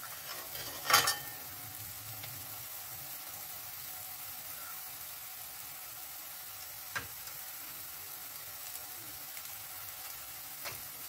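Chopped onion and garlic sizzling steadily in oil in a frying pan, with a loud clatter about a second in and two light clicks later.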